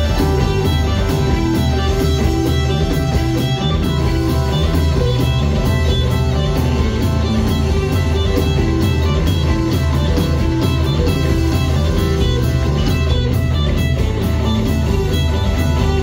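Live rock band playing an instrumental passage: electric guitar over keyboards, bass guitar and drums, steady and loud.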